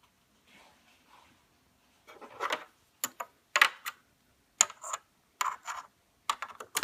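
Hard plastic clicking, knocking and scraping as an AUX input port is handled and fitted back into a car's center-console trim piece: faint rustling at first, then a string of sharp clicks and short rubs.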